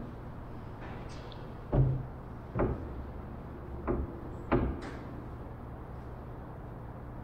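Wooden knocks and thumps from the plywood fuselage of a homebuilt Minimax 1100R ultralight as a person climbs in and settles into the cockpit seat: four bumps, the loudest a little under two seconds in, over a steady low hum.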